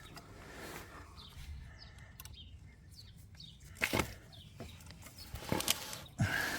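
Rustling handling noise with a few sharp knocks and clinks, about four seconds in, again near five and a half, and just before the end, as the center stand return springs are being stretched and hooked onto a Honda Africa Twin.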